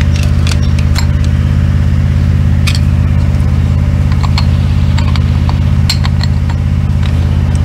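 A steady low mechanical drone of an engine or motor running throughout, with scattered light metallic clicks and clinks as the steel clutch drum and its splined shaft from the backhoe's shuttle transmission are handled.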